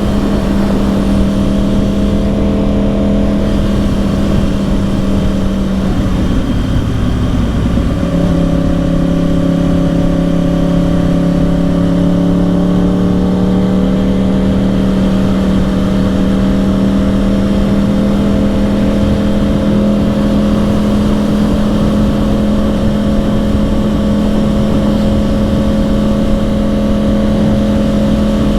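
2010 Yamaha YZF-R1's crossplane inline-four engine running steadily under way through its dual Yoshimura exhausts, with constant wind rush. About six seconds in, the engine note breaks for a gear change, then comes back lower and slowly climbs as the bike gathers speed.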